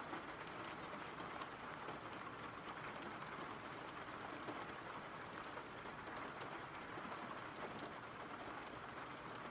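Steady rain, a soft even hiss with a few faint drop ticks.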